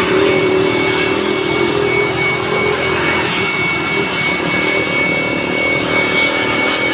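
Handheld electric air blower running steadily at full speed, blowing dust out of the inside of an opened photocopier: a loud rush of air under a motor hum and a thin, steady high whine.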